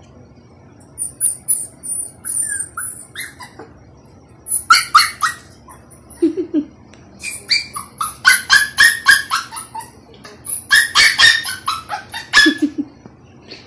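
Small dog whimpering and yelping in quick high-pitched runs, four bursts a second or two long, a few seconds apart.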